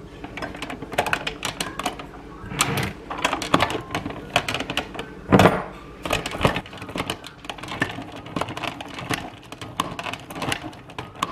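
Hand-turned rotary drum grater shredding a stick of frozen butter: a rapid, uneven clatter of clicks and rasps as the drum turns, with a louder knock about five and a half seconds in.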